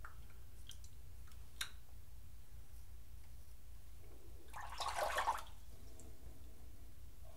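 Water splashing briefly at a bathroom sink, wetting down between shaving passes, about four and a half seconds in. Before it come a few faint clicks, over a steady low hum.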